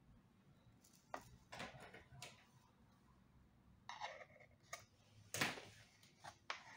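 Faint handling noises from working on the opened iMac: scattered light clicks and short rustles. The loudest comes about five and a half seconds in.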